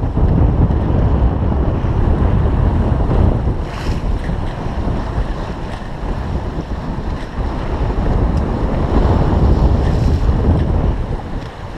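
Wind buffeting the microphone over the rush and splash of water along the hull of a Pearson Triton sloop sailing heeled in a fresh breeze. The sound is a steady, loud rumble that eases a little in the middle and builds again near the end.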